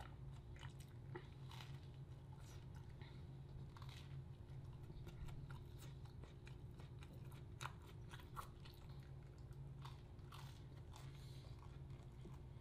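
Faint chewing and crunching of a grilled cheese sandwich, with scattered small clicks, over a steady low hum.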